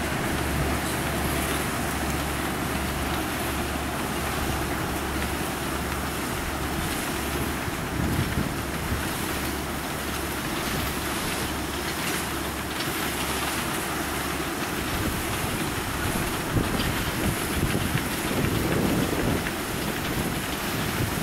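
Cane train passing: the two diesel locomotives give a steady low hum that stops about two-thirds of the way through as they draw away, while empty cane bins rumble by on the rails. Wind buffets the microphone throughout.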